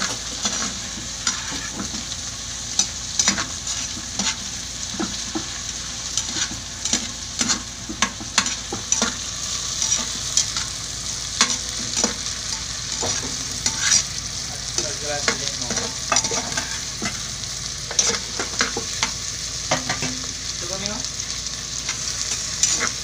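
Onion, garlic, ginger, tomato and lemongrass sautéing in a large aluminium pot, sizzling steadily, while a metal ladle stirs them, scraping and clinking against the pot again and again.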